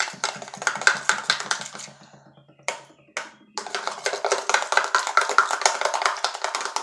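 Thick liquid soap and shampoo being stirred quickly in a container for slime, making rapid wet clicking and tapping. It comes in two spells with a short pause, broken by a couple of single clicks, about two seconds in.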